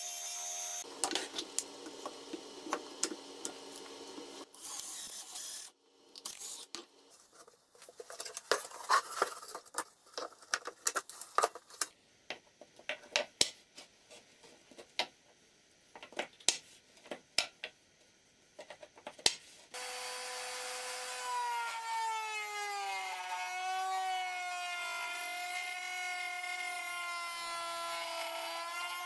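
Workshop power tool sounds. At the very start a disc sander runs against wood. Then comes a long series of sharp knocks and clicks of wooden parts being handled and set down. About two-thirds of the way in an electric power tool motor starts and runs to the end, a steady whine whose pitch dips and recovers as it takes load.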